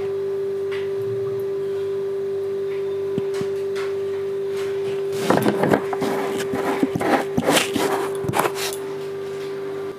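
A steady, even hum runs throughout. From about five seconds in there are a few seconds of light clatter and rustling, like kitchen utensils being handled, which stop shortly before the end.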